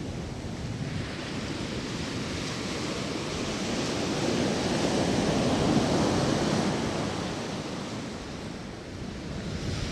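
Atlantic surf breaking on a sandy beach: a continuous rush of waves that swells about halfway through and eases briefly near the end.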